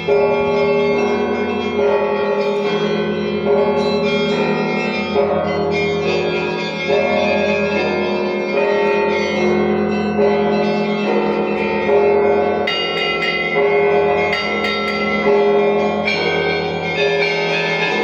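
Church bells ringing: several bells of different pitch struck again and again in a continuous, overlapping peal.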